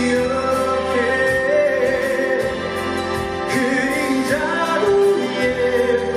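A singer performing a ballad live with band accompaniment, holding long notes that slide between pitches.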